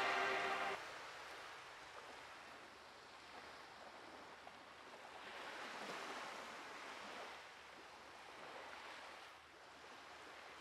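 The last music note dies away within the first second. After it comes a faint wash of ocean surf, swelling and easing off twice.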